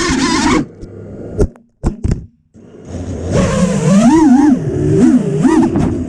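FPV freestyle quadcopter's brushless motors whining, then cutting out under a second in, with only a few short throttle blips. The whine comes back about three seconds in and swoops up and down in pitch as the throttle is worked.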